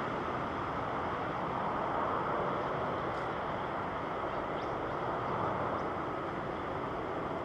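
Steady rushing jet-engine noise from a Boeing 777-300ER airliner, even in level throughout.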